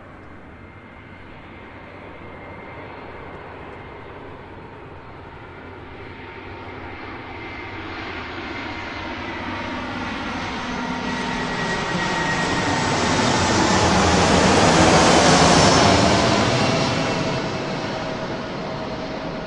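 Jet aircraft flying past: its engine noise builds slowly as it approaches, is loudest about fifteen seconds in, then fades as it moves away, with a whine that slides down in pitch as it passes.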